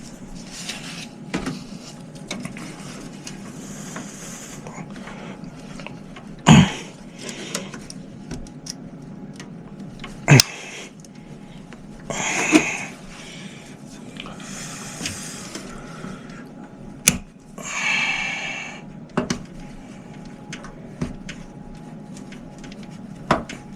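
Scattered handling sounds from working inside a desktop PC case: a few sharp plastic clicks and short rustles as the retention latches on the RAM slots are pressed open to free the memory sticks.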